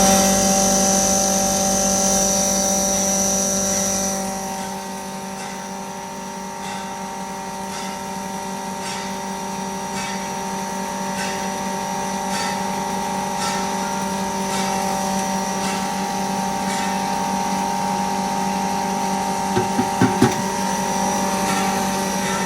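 3 HP single-phase turmeric powder grinder (pulverizer) running steadily, with a steady hum and a high whine that fades about four seconds in, then faint regular ticking. A few sharp knocks come near the end.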